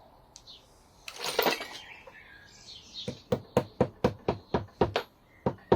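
A hand tool working a bolt on the motorcycle's front end gives a run of sharp, evenly spaced metallic clicks, about four a second, starting about three seconds in. Before that comes a short rattle of tools being handled, and a bird chirps faintly.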